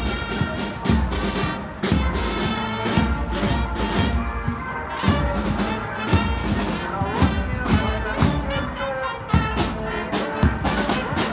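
Marching brass band playing as it passes: trumpets and other brass over a regular drum beat.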